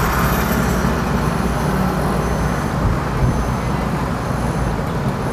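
Steady road noise and wind rumble from a car driving across a bridge, picked up by a phone held out of the car window.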